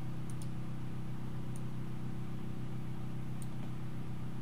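Steady low hum of background noise in a small room, with a few faint, sharp mouse clicks as menu items are picked.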